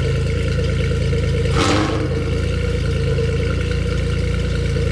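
Loud car engine idling steadily, with a short sharp burst of exhaust noise about a second and a half in.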